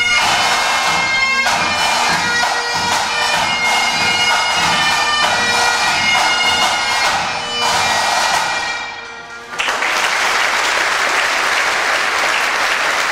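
A pipe band of Highland bagpipes and drums plays the closing bars of a tune. The drums stop about eight seconds in and the pipes die away a moment later. The audience then applauds.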